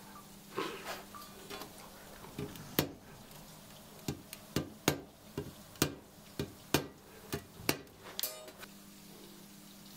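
Small hammer striking the teeth of a Japanese ryoba saw blade against a steel anvil: about ten sharp, ringing metal taps at roughly two a second, then a short scrape as the blade slides on the anvil.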